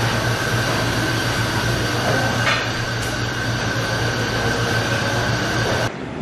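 Steady mechanical drone, a low hum with a constant high whine over it, that cuts off abruptly near the end and gives way to fainter wind noise.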